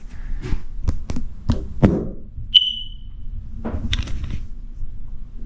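Plastic clicks and knocks from a smoke detector's casing being pressed and handled, then a single short high-pitched beep from the detector about two and a half seconds in, then a few more clicks.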